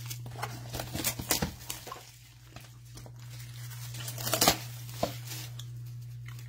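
Plastic shrink wrap being torn and crinkled off a cardboard trading-card box, in irregular crackling bursts, loudest about four and a half seconds in. A steady low hum runs underneath.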